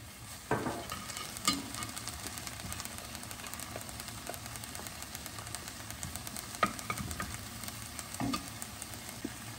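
Shredded red cabbage sizzling softly in a heavy enamelled pot while it is stirred with a wooden spoon. A few sharp knocks of the spoon against the pot come through, about half a second in, at a second and a half, and twice near the end.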